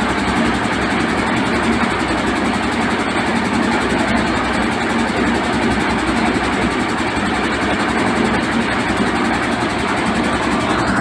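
Diesel engine of a concrete mixer with lift, running steadily.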